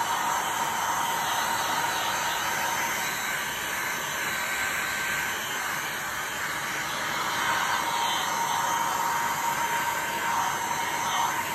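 Handheld electric heat gun running steadily, its fan blowing hot air with a faint steady whine, passed over wet epoxy resin to pop surface bubbles.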